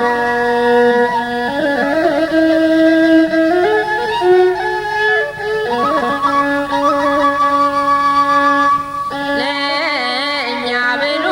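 Music: a slow instrumental passage with long held chord notes under a gliding melody line. About nine seconds in, a wavering, vibrato-laden line comes in over it.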